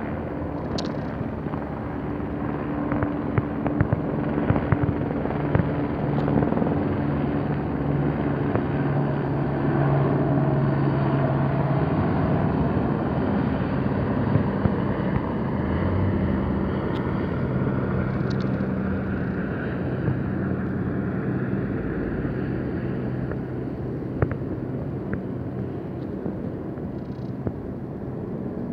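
Helicopter flying overhead, a continuous engine-and-rotor drone whose pitch shifts lower about halfway through as it passes.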